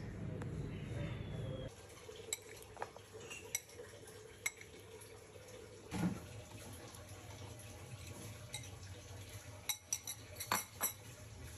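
Mango chunks dropping one at a time into an empty clear blender jar, each landing as a single knock or clink on the jar and blades. The strongest knock is about six seconds in, and a quick run of knocks comes near the end as the jar fills.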